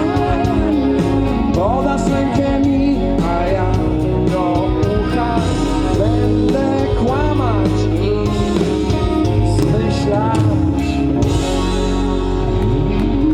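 Live pop-rock band playing the closing instrumental part of a song through a PA, with a melody line sliding up and down in pitch over steady bass and a regular drum beat.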